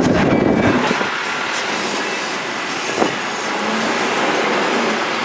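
Fire engine's diesel engine and road noise heard inside the cab while driving, a steady rattling rumble whose low end drops off about a second in. One short knock about three seconds in.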